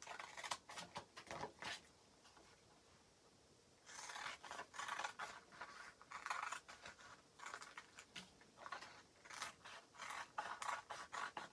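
Scissors snipping through Chalk Couture transfer sheets in a run of short cuts. The snipping pauses for about two seconds shortly after it starts, then carries on.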